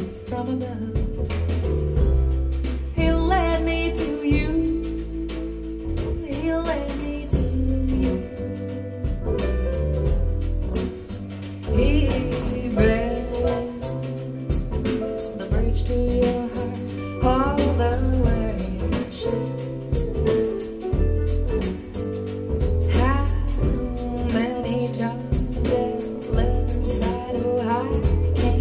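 Live jazz-pop song, a woman singing over a band with a strong, deep bass line, played back through Musician Knight 1 bookshelf speakers driven by an SMSL AO300 Class D integrated amplifier.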